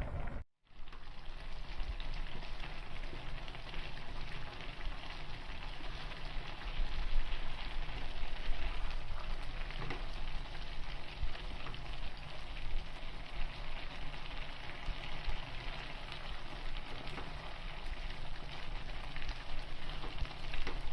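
Milk-based sweet mixture bubbling and sizzling in a hot pan on the gas, a steady crackling hiss, with a brief dropout about half a second in.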